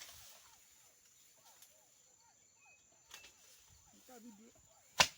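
One sharp chopping strike into wood near the end, with a fainter knock about three seconds in. Between them, faint bird chirps and a steady high insect drone.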